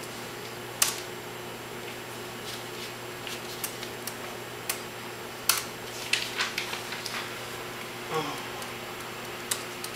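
Typing on a laptop keyboard: scattered key taps and clicks, with a quick run of keystrokes about six seconds in, over a faint steady room hum.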